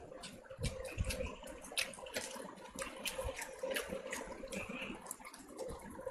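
Eating by hand: wet chewing and lip-smacking with fingers squishing rice, dal and chicken curry, heard as irregular short wet clicks. A faint steady hum runs underneath.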